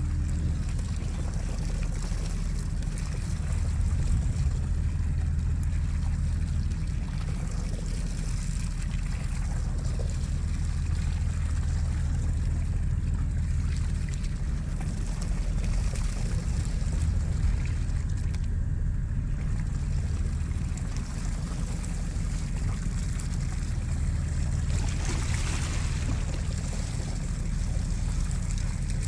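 Boat engine running with a steady low hum, under the hiss of water and wind around the hull, with a brief louder hiss near the end.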